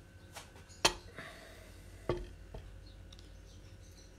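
Crockery clinking as soup is ladled into white ceramic bowls: two sharp knocks with a short ring, the louder about a second in and another about two seconds in, and a few lighter taps between.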